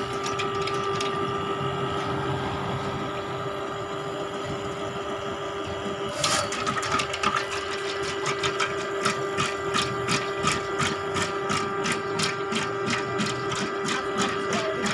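Electric drain-cleaning machine running with a steady motor hum. From about six seconds in, a fast, irregular rattling of clicks joins it as the spinning cable works in the pipe.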